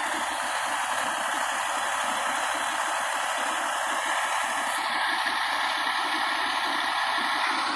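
A vehicle engine running steadily under an even hiss, with no change in level.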